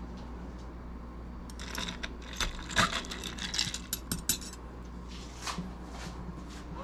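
Light clicks and taps of metal bar tweezers against a small cocktail mug as a skewered pineapple wedge and mint sprig are set into the drink, bunched in the middle with a couple of stray taps later, over a faint steady hum.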